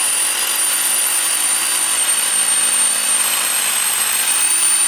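Chicago Electric SDS rotary hammer drill (Harbor Freight #69274) hammer-drilling into a concrete wall: loud, steady drilling with a high, constant motor whine.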